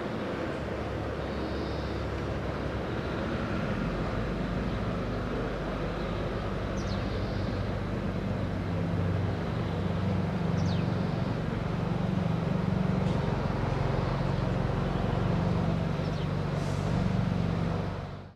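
Outdoor street ambience with a motor vehicle's engine running nearby: a steady low hum that grows louder about halfway through, with a few faint high chirps. The sound fades out at the end.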